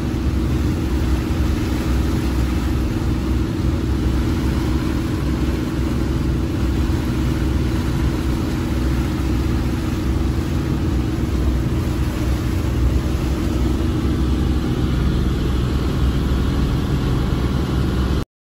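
Twin diesel engines of a 43-foot Albin trunk-cabin trawler running steadily under way, a constant low drone that cuts off abruptly at the very end.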